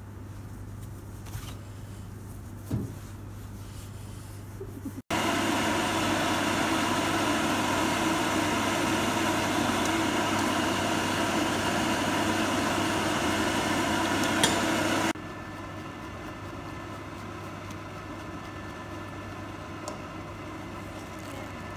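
Pet grooming dryer blowing steadily, a dense rushing air noise with a motor whine through it. It is loud for about ten seconds from a sudden start about five seconds in, then drops abruptly to a quieter steady blow; before it, only a low steady hum.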